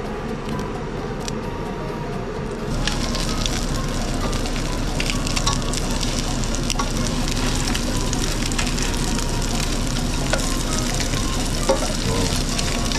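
Panko-crumbed fish frying in butter in a pan: steady sizzling that turns louder about three seconds in and keeps crackling and spitting.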